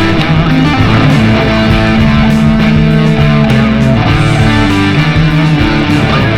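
Rock music with electric guitar playing loud and steady.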